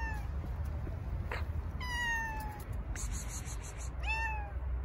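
Black-and-white stray cat meowing three times: once at the start, a longer falling meow about two seconds in, and a shorter one about four seconds in.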